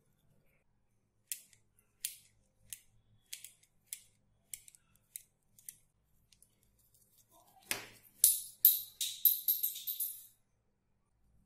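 Small screwdriver and toy rifle parts worked by hand: about ten sharp clicks, roughly two a second, then a knock followed by two seconds of fast, loud clattering and scraping with a thin ringing.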